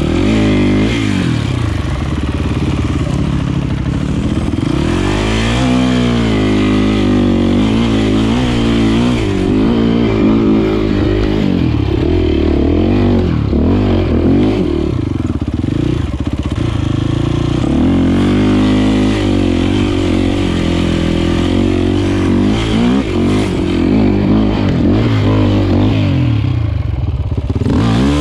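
Enduro motorcycle engine running under load as the bike is ridden, its pitch rising and falling with the throttle in repeated revs and shifts.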